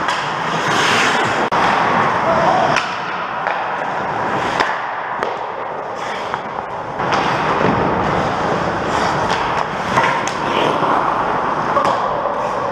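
Ice hockey skate blades scraping and carving the ice in a steady hiss, with a few sharp clacks of sticks and puck.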